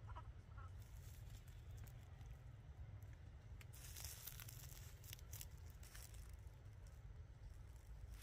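Faint crackling and rustling of dry leaves and twigs in scattered bursts, thickest about four to five seconds in, over a low steady rumble.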